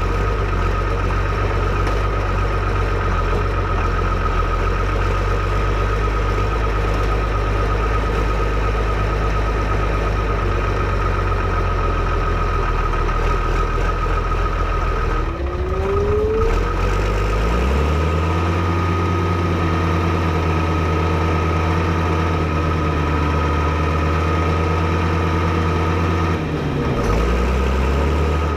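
Fiatagri 115/90 tractor's 5.9-litre FIAT six-cylinder diesel running steadily at idle, then revved up about halfway through and held at a higher speed before dropping back toward idle near the end.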